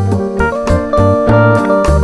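Background music: an instrumental track with keyboard and guitar notes over a steady bass line.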